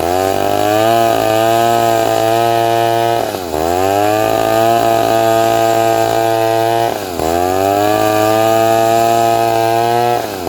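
Chainsaw engine running at high revs while cutting a large teak log. The engine pitch drops sharply and climbs back three times, about every three and a half seconds, as the saw bogs under load and recovers.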